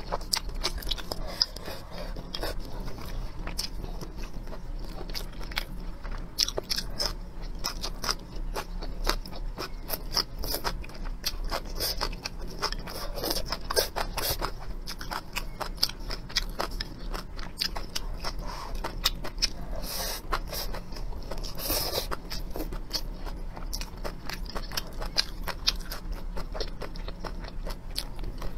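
Close-miked eating: wet chewing and slurping of sweet potato noodles, a dense run of small mouth clicks, with a few louder bursts of slurping about halfway through and again a few seconds later.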